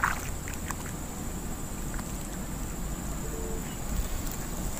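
Outdoor ambience at a reservoir bank: a low rumble of wind on the microphone under a steady thin high-pitched whine, with a brief rustle right at the start.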